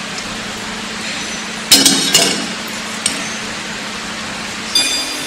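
Stainless steel parts of a bucket elevator frame knocking together as a connecting shaft is fitted between the side plates: a cluster of sharp metal clanks a little under two seconds in, a lighter click around three seconds, and a ringing metallic clink near the end, over a steady hum.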